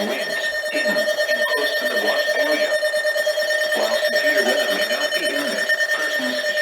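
A steady electronic alert tone sounding continuously, with fainter shifting sounds beneath it.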